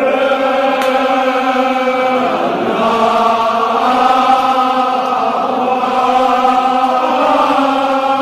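Men's voices chanting a Kashmiri marsiya, a Shia elegy, together in long drawn-out notes, the melody shifting to a new pitch about two and a half seconds in.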